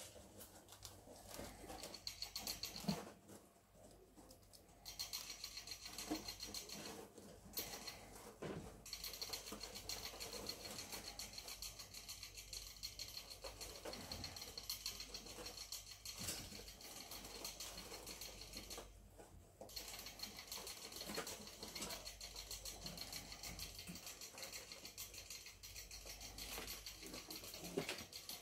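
Pet rats scurrying and rustling through wood-shaving bedding, with a steady patter of small scratches and clicks.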